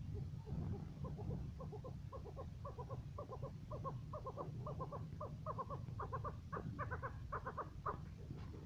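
Chukar partridge (a first-cross maskati chakor) calling: a long run of quick, mostly paired clucking notes that grows louder and more insistent toward the end. A low rumble lies underneath.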